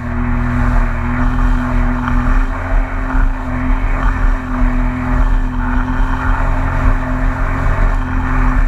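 Yamaha WaveRunner personal watercraft engine running steadily at cruising speed, with a constant engine tone over the rush of water and spray from the jet.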